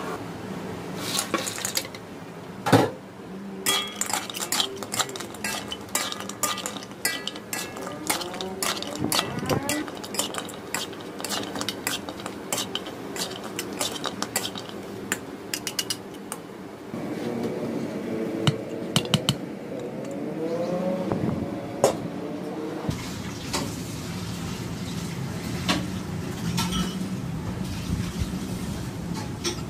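Metal spatula scraping and clinking against a wok as a chilli-garlic syrup sauce bubbles and fried squid is tossed through it. There are many sharp clinks in the first half, then a steadier frying noise.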